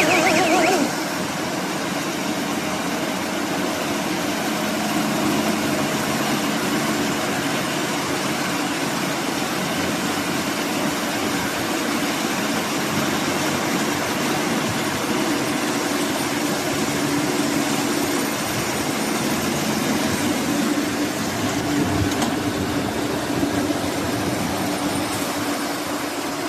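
Diesel engine of a round hay baler and wrapper running steadily, with the machine's working noise.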